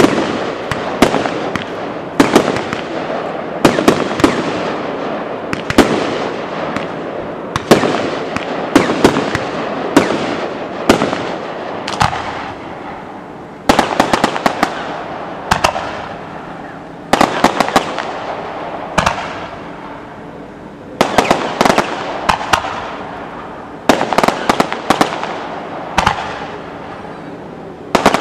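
Professional fireworks display: aerial shells bursting in the sky, with sharp bangs coming every second or two, often several in quick succession, over a constant crackle and hiss.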